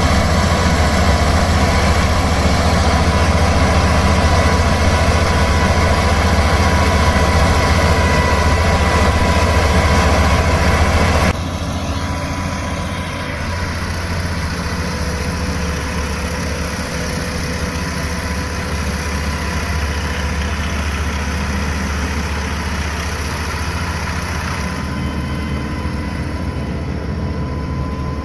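Engine of a rice combine harvester running steadily. About a third of the way in it cuts abruptly to a quieter take of the same kind of engine sound.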